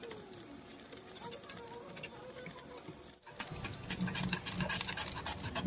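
Wire whisk stirring thick custard in a metal saucepan. The first three seconds are faint. About three seconds in, it turns to a steady, busy run of clicks and scrapes as the wires work the stiff cooked filling against the pan.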